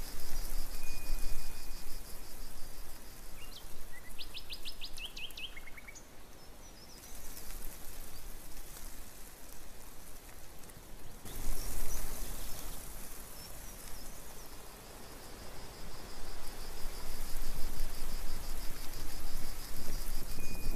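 Outdoor pond-side ambience: a steady hiss that swells and fades, with a fast, even, high-pitched pulsing that drops out in the middle. A short high whistle comes about a second in and again near the end, and a quick rattling run of high bird-like notes comes around four seconds in.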